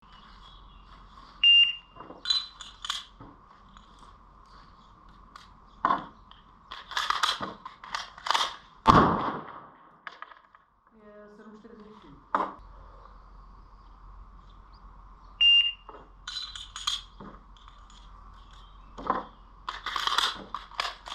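A short high timer beep, then a string of sharp clicks, clacks and scrapes as Glock 19 Gen4 pistol parts are fitted together against the clock. A second beep comes about fourteen seconds later, followed by more clacks, over a faint steady hum.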